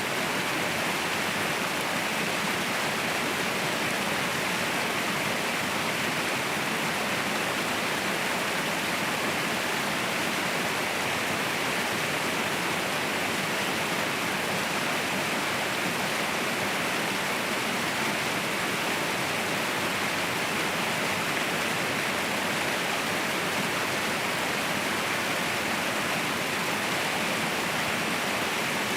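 Waterfall rushing steadily, an even, unbroken roar of falling water with no breaks or changes.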